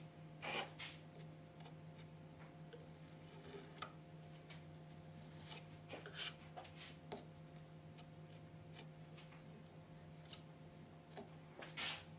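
Faint scrapes and light taps of a putty knife trimming glazing putty around the glass of a timber window sash, a handful of short strokes scattered through, over a steady low hum.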